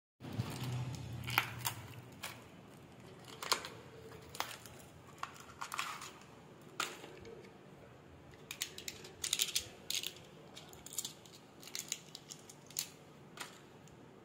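Scissors snipping and small medicine packets crinkling as they are handled, in irregular clicks and rustles, with a busier flurry about nine to ten seconds in.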